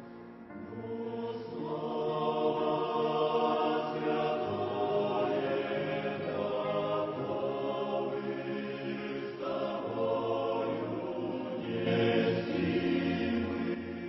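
Choir singing a Christian hymn in long held chords, the phrases swelling and breaking every few seconds.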